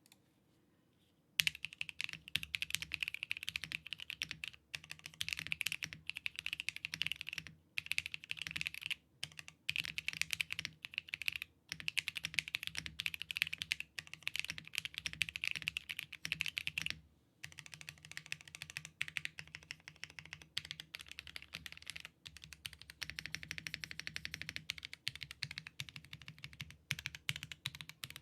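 Fast continuous typing on a Tomo mechanical keyboard with factory-lubed Preference linear switches in a polycarbonate plate, with no foam and a dual O-ring/top mount: a dense stream of keystroke clacks. The typing starts about a second and a half in and breaks off briefly every few seconds.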